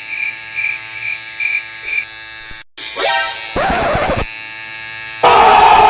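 Electric clipper buzzing steadily with a pulsing beep over it, cut off suddenly about two and a half seconds in. A short burst of noise follows, and near the end a loud crowd yelling comes in.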